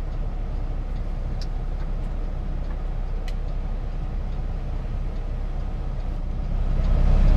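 Steady low rumble inside a semi-truck cab: the Kenworth T680's diesel engine and road noise, growing a little louder near the end.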